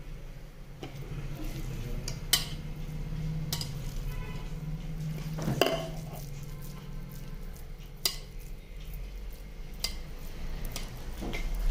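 Steel ladle clinking against a steel pot about four times, a couple of seconds apart, as it scoops crumbly pinni mixture, over a steady low hum.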